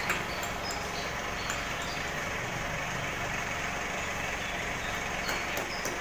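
A steady engine or motor running, with a few faint clicks and short high chirps over it.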